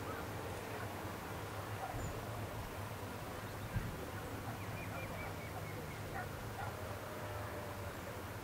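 Open-air ambience with a steady low rumble, a few faint bird chirps about five seconds in, and a single knock a little before that.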